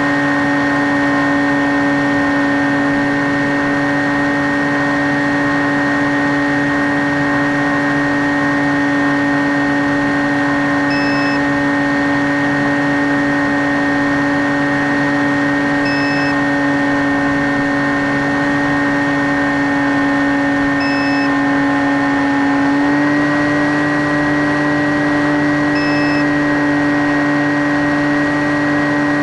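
Skywalker X5 flying wing's electric pusher motor and propeller running at steady throttle, heard from onboard with air rushing past: a steady droning whine that steps up slightly in pitch about three-quarters of the way through.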